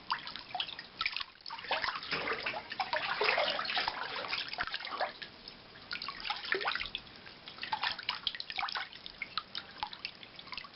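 Water dripping and splashing in a filled bathtub: irregular drips and small splashes, busiest for a couple of seconds near the start.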